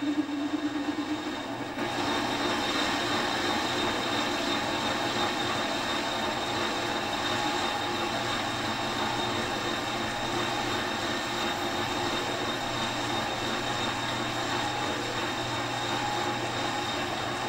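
Metal lathe running steadily with a constant motor and gear whine; the sound shifts about two seconds in and then holds even.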